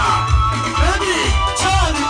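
A man singing live into a microphone over amplified backing music with a steady bass beat.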